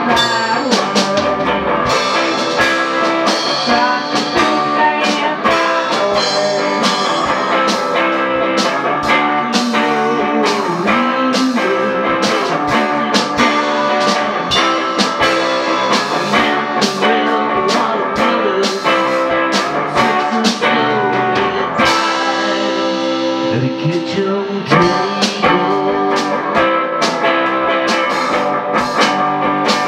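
A live band playing: an electric guitar through an amplifier over a Pearl drum kit keeping a steady beat. A little after twenty seconds in, the drums thin out for a couple of seconds while the guitar rings on, then the beat comes back.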